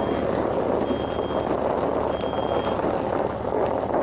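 Steady car running noise heard from inside the cabin, with a high electronic warning chime beeping at an even pace, about every second and a quarter, that stops a little under three seconds in.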